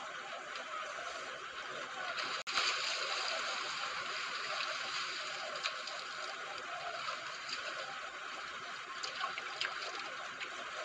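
Water trickling and dripping as a wet cast net is hauled up out of the river, a steady splashy hiss with a brief drop-out about two and a half seconds in and a few faint ticks later.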